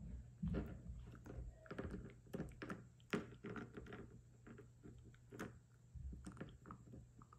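A puppy chewing and gnawing a small dried chew treat: a quick run of clicks and crunches, thickest over the first three seconds or so, then more spaced out.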